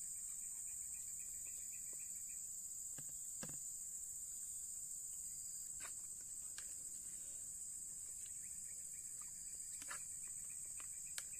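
A steady high-pitched drone of insects, with a few light clicks and taps scattered through it as a fork scrapes noodles from a plastic bowl.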